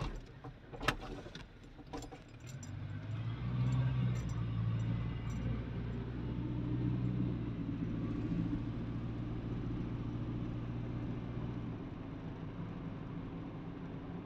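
Car engine and road noise heard from inside the moving car's cabin: a steady low hum that swells about two and a half seconds in and eases near the end. A few sharp clicks or rattles come in the first two seconds.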